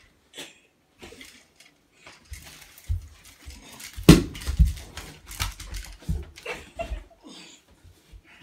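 Two people wrestling on a carpeted floor: scuffling, clothes rustling and a run of thumps, the loudest about four seconds in.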